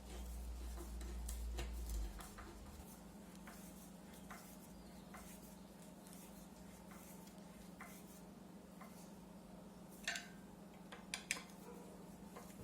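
Faint scattered clicks and light taps over a steady low hum, with a few sharper clicks near the end; a low rumble stops abruptly about two seconds in.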